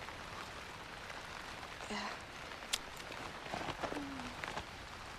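Steady outdoor ambient hiss, with a few faint brief sounds and a sharp click about halfway through.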